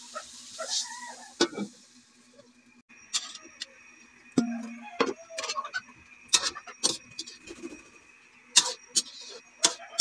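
A metal spatula clanks and scrapes against a metal wok in sharp, irregular knocks as gizzards and liver are stirred. A hiss from the pan fades out a few seconds in.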